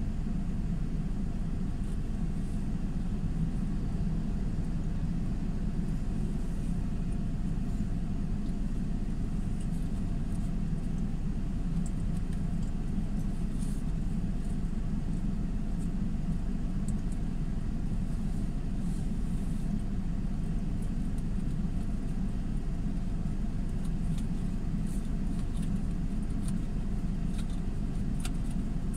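Steady low rumble of a motor vehicle that does not rise or fall, with a few faint light ticks near the end.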